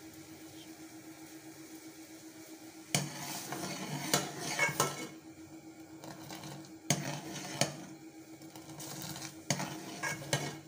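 Steel ladle clinking and scraping against a steel pot as boiling milk tea is scooped up, poured back and stirred, in three bouts of clatter starting about three seconds in. Before that there is only a steady low hum.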